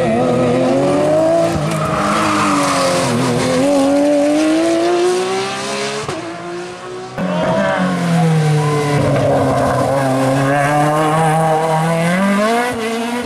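GT race car engines at full throttle on a hillclimb, one car after another, the engine note rising and falling as the cars accelerate, shift and brake for corners. The sound breaks off abruptly about six seconds in, and a second car is heard from about seven seconds in.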